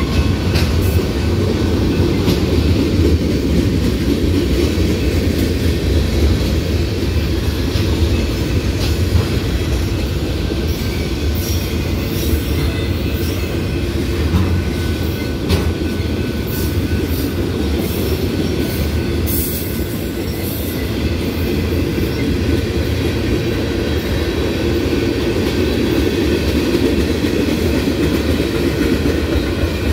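Cars of a loaded manifest freight train rolling past: a steady rumble of steel wheels on rail, with scattered sharp clicks and clatter from the wheels, thickest about halfway through.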